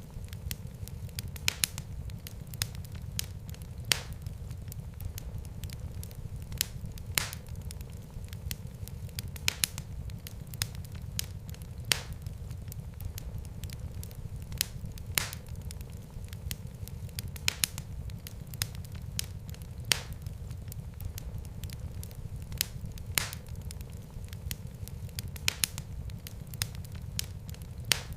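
Wood fire burning in a fireplace: a steady low rumble of flames with frequent sharp crackles and pops at irregular intervals.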